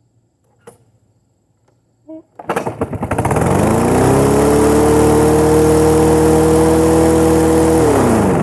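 Snapper self-propelled push mower's small engine catching after a couple of seconds, rising to a steady high-speed run, then winding down near the end as it is shut off. It knocks, the sign the owner takes of a half-blown engine that is pretty much done for.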